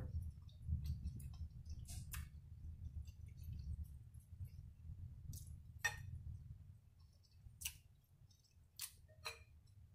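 A person chewing a mouthful of tender lobster meat close to the microphone: a soft, low, uneven chewing sound, with a few sharp clicks scattered through it.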